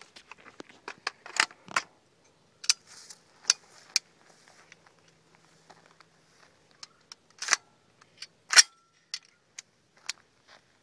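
Metallic clicks and clacks of a POF P308 piston-driven AR-10-style rifle being handled and readied. There are a dozen or so separate sharp clacks, and the loudest, about eight and a half seconds in, rings briefly.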